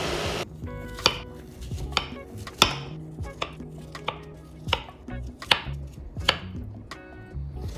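Kitchen knife cutting dragon fruit into cubes on a wooden cutting board, the blade knocking sharply on the board about once a second, over soft background music. A blender's motor is running at the start and cuts off about half a second in.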